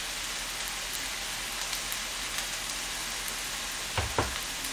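Egg fried rice sizzling steadily in a hot frying pan, with faint crackles. About four seconds in, two quick knocks as a spoon drops margarine into the pan.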